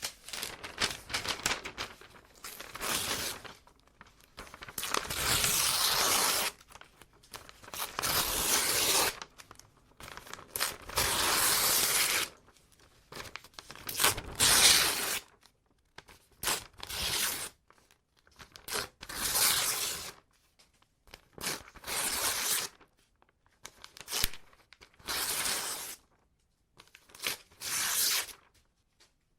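Paper being ripped by hand, again and again: long tears of a second or two alternating with short quick rips, with brief pauses between them and a little crinkling.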